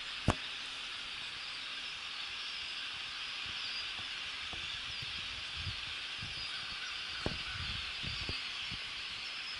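A large flock of birds in a wetland impoundment calling all at once, a dense, unbroken chorus, really loud. A few faint knocks from handling the camera come through it.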